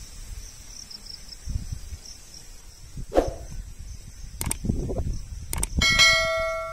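Subscribe-button animation sound effect: two sharp mouse clicks about a second apart, then a bright bell chime that rings out near the end and is the loudest sound. Underneath, a faint steady insect buzz and low rumbles.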